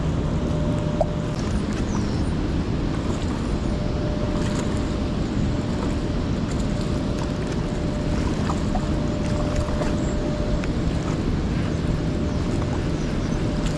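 Steady rushing noise of wind and water, with a few faint ticks.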